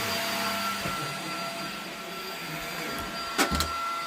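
Rowenta cordless stick vacuum cleaner running on a rug: a steady motor whine over a rushing hiss. A couple of sharp knocks sound about three and a half seconds in.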